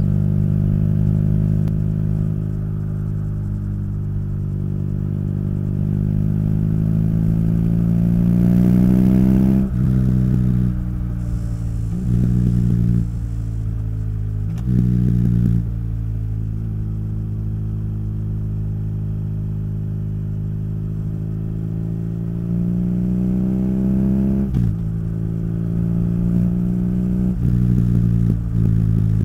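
BMW R nineT's boxer twin running through its Akrapovic exhaust under way. The engine climbs in pitch through one long pull, drops sharply at an upshift about ten seconds in, and then surges briefly twice. It holds a steady cruise, climbs again and shifts once more about two-thirds of the way through, with further short surges near the end.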